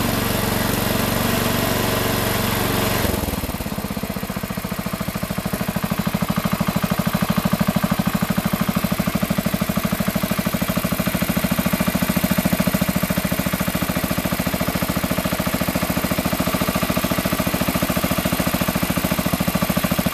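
1969 Sears Suburban Hydro-Trac garden tractor's small air-cooled engine running on its first cold start of the season. About three seconds in it drops abruptly from a faster run to a slower idle with distinct, even firing pulses, and holds there steadily while the carburettor is adjusted by hand.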